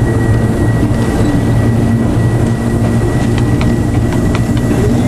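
Diesel engine of a TEM2 shunting locomotive (six-cylinder PD1M) running steadily, heard from inside the cab as the locomotive moves slowly along the track. It makes a deep drone with a thin, steady high-pitched whine over it, and a few light clicks come in the second half.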